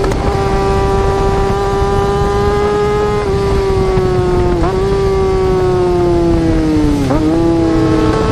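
Yamaha R6 inline-four sport-bike engine at high revs, its high-pitched note slowly falling and then jumping back up in quick blips about three, four and a half and seven seconds in.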